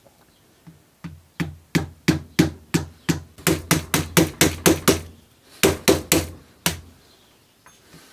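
A mallet tapping repeatedly on the steel action and trigger unit of a Gamo Swarm air rifle held in a bar clamp. There are about eighteen sharp taps at roughly three a second, starting about a second in, with a brief pause around five seconds in, and they stop a second or so before the end.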